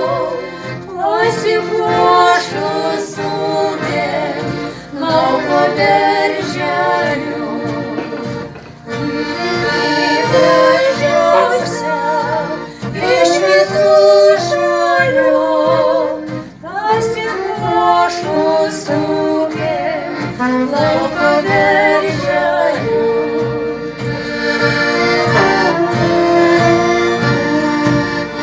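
Two women singing a Lithuanian folk song with accordion accompaniment. Near the end the voices stop and the accordion plays on alone.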